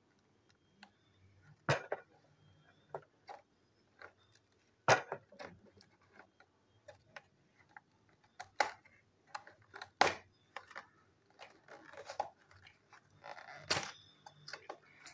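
Scissors snipping through the sealed end flap of a cardboard toy box: a handful of sharp snips and clicks spaced a second or more apart, with smaller ticks between. Cardboard rustling near the end as the box is handled.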